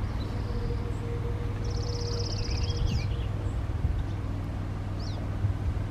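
A steady low engine rumble, with a songbird giving a rapid high trill about two seconds in and short chirps later.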